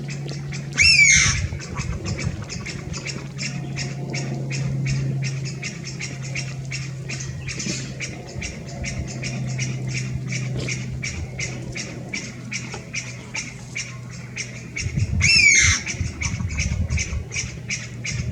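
Chinese bamboo partridge giving a loud, harsh 'pyaa' call twice, about a second in and again near the end, over quicker repeated 'pyu, pyu' calls from other bamboo partridges farther off.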